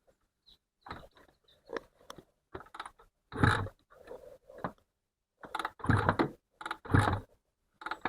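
Honda NSR250R's two-stroke V-twin being kicked over on the kickstarter with a spark plug out for a spark check: several kicks with clatter from the lever and engine turning over, not firing.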